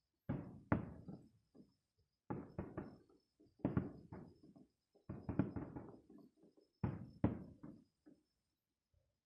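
Aerial firework shells bursting in quick volleys: five clusters of several bangs each, every bang dying away fast.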